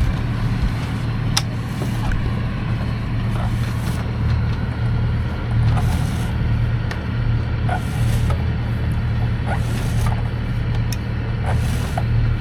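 A sailboat's inboard engine running steadily with a low drone, with scattered light clicks and knocks of deck hardware and brief whooshes every couple of seconds.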